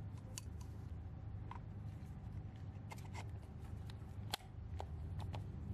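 Faint scattered clicks and rustles of gloved hands handling a plastic oil filter housing cap and a pleated paper filter element while fitting a new o-ring, over a steady low hum.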